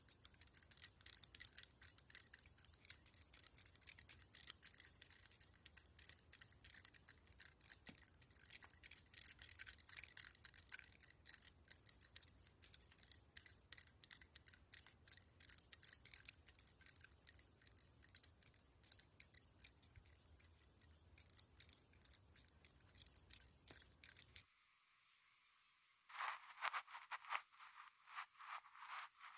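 Rapid, crisp tapping and scratching of makeup items, many small clicks a second. About 25 seconds in, the background hiss drops out and slower, separate strokes follow.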